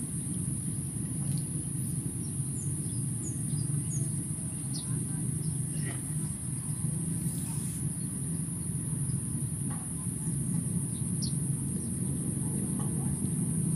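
Outdoor lakeside ambience: a steady low rumble, a continuous high-pitched insect drone, and short scattered bird chirps throughout.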